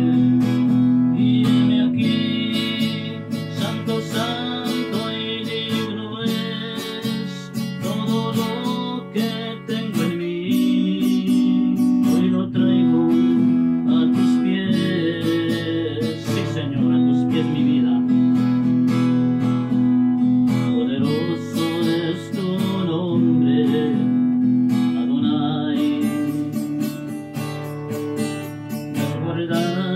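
Strummed acoustic guitar accompanying a man singing a Spanish-language worship song.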